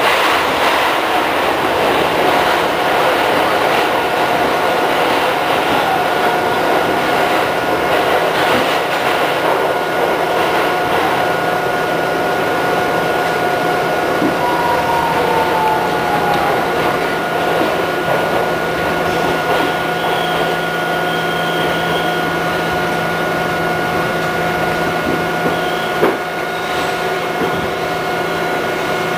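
Westinghouse R68 subway car running through the tunnel and into a station, heard from inside the car: a steady rumble of wheels on rail with a steady whine over it. Near the end comes a single knock.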